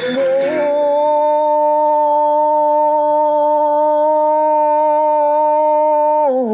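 One long sung note held at a steady pitch for about five seconds, sliding down near the end.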